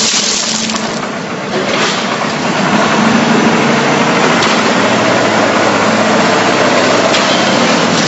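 Machinery engine running steadily nearby, a loud, dense mechanical noise with a faint steady low tone under it.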